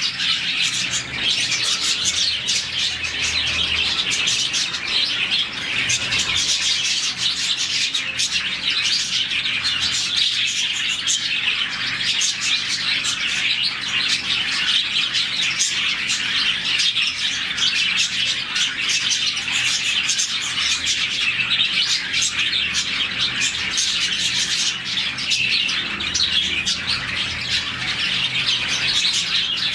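A colony of about forty budgerigars chirping together, a dense unbroken chatter of overlapping chirps and squawks with no pauses, the happy contact chirping of a settled flock.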